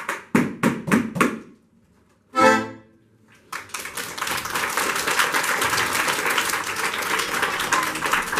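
Accordions and violin play the last rhythmic chords of a song, about four strikes a second, then stop. After a pause comes one short final chord. From about three and a half seconds in, the audience applauds steadily.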